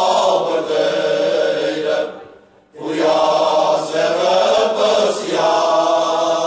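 Men's choir singing cante alentejano unaccompanied, many voices on long held chords. The singing breaks off for a breath about two seconds in, then swells back in on a new held phrase.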